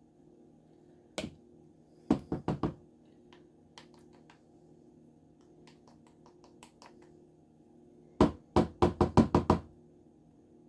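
Jar of ground cinnamon being tapped and shaken over a tablespoon measure to work the powder out: a sharp knock, then a quick run of four knocks, a few faint ticks, and a run of about seven knocks near the end.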